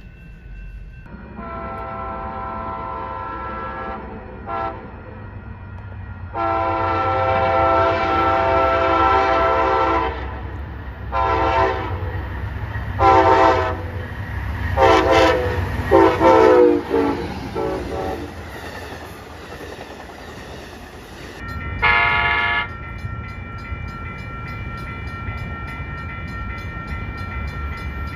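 Train horn sounding a string of blasts: a long blast, a brief one, a second long blast, then several short blasts, the last dropping in pitch, with one more short blast near the end. A steady low rail rumble runs underneath and grows as the train passes.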